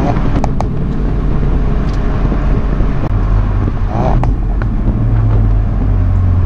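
Ford Focus RS Mk3's 2.3-litre turbocharged four-cylinder running at a steady, even speed with a low drone, with a few short clicks.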